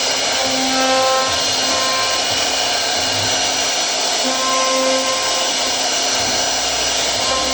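CNC router running with a steady, loud machining noise. Short pitched tones start and stop every half second to a second over the noise.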